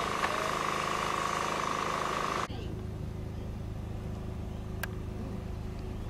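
Outdoor ambience with faint distant voices over a steady hum, which cuts off abruptly about two and a half seconds in to a quieter, steady low drone.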